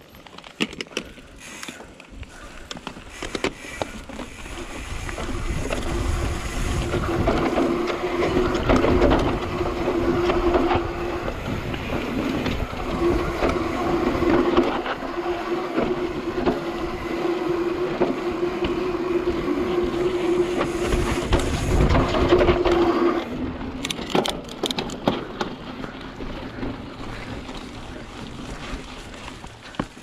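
Trek Slash mountain bike rolling fast down a dirt trail: tyres rumbling over the ground, wind on the helmet camera's microphone, and a steady buzz from the rear hub coasting that drops out briefly about a third of the way in. The first few seconds are quieter, with scattered clicks and knocks.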